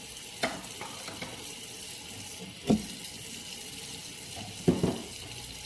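Water running from a tap into a sink, a steady rush, with three sharp knocks about half a second, two and a half seconds and nearly five seconds in.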